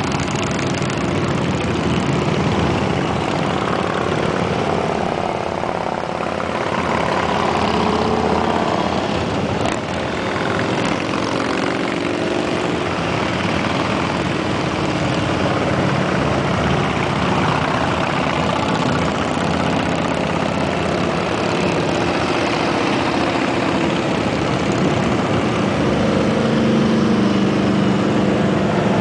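A long line of motorcycles riding past one after another at road speed, their engines running steadily, each bike's engine note rising and falling in pitch as it goes by.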